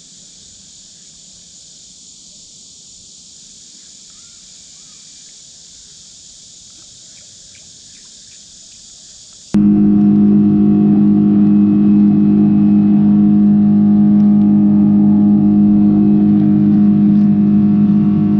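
A steady high hiss for about the first nine seconds. Then a sudden cut to a motorboat's engine running steadily under way, loud, with a strong low hum and several higher tones over it.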